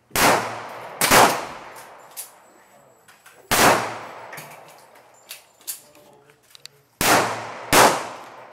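Glock 9mm pistol firing five shots: a quick pair at the start, a single shot a couple of seconds later, then another quick pair near the end, each crack followed by a short decaying echo.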